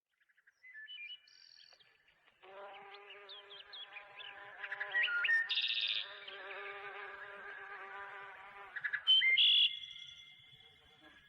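A flying insect buzzing steadily for about six seconds, with short bird chirps over it. Birdsong comes before the buzz, and louder whistled bird notes follow just after it stops.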